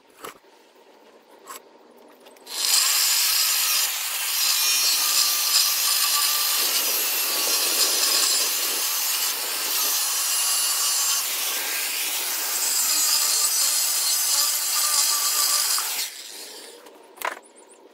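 Electric demo saw with a 7-inch abrasive disc cutting through scrap steel: a steady, loud grinding hiss with a faint whine, starting about two and a half seconds in and stopping about two seconds before the end. The disc wears down noticeably in the cut.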